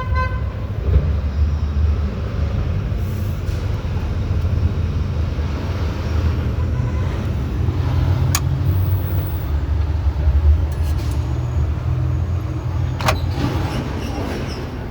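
City street traffic: a steady low rumble of vehicle engines, with a couple of sharp clicks about 8 and 13 seconds in.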